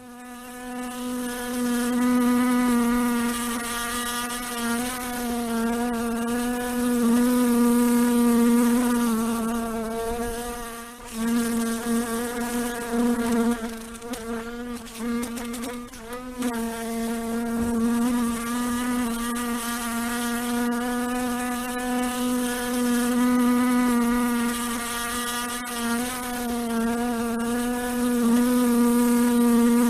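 Fly buzzing in flight: one steady drone with a slightly wavering pitch that swells and fades in loudness as the fly moves about. The buzz briefly breaks off about eleven seconds in and turns rougher for a couple of seconds around the middle.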